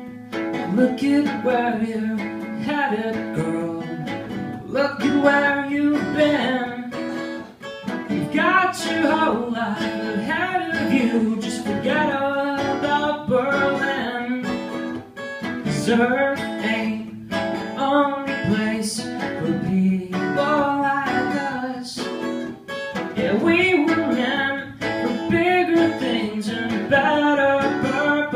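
Live acoustic music: two acoustic guitars played together, strummed chords under a melodic line that bends in pitch.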